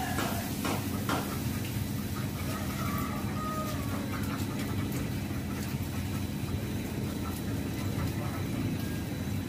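A steady low engine-like hum, even in level throughout, with a faint short higher call about three seconds in.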